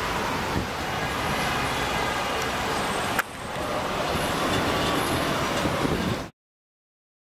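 City street traffic noise: a steady wash of passing cars and street hum, with a brief dip about three seconds in, cutting off to silence about six seconds in.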